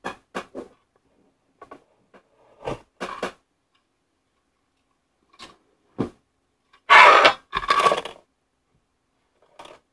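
A few scattered clicks and knocks, then about seven seconds in a loud rattling clatter in two surges as cardboard jigsaw pieces are tipped out of a small metal tin onto a table.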